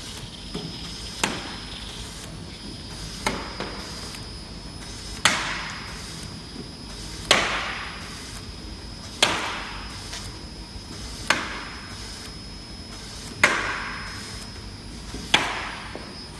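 Automatic top-labeling machine labeling flat cardboard carton blanks on a conveyor, working in a regular cycle: a sharp knock about every two seconds, each followed by a short fading whir. A steady high whine from the running machine plays underneath.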